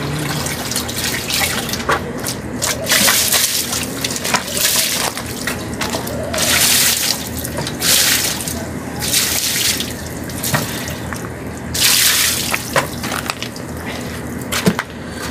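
Water splashing onto a bicycle as it is rinsed: several gushes of up to about a second each, over a steady low hum.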